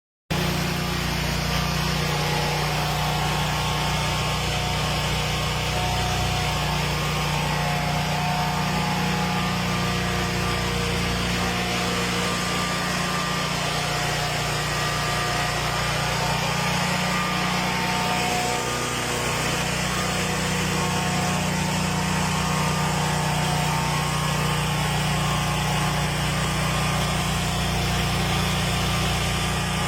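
A small motor or engine running steadily.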